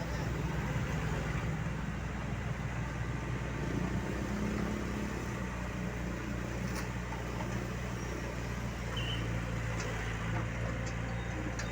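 Diesel engine of a heavy machine running steadily with a low, even hum, plus a few faint clicks.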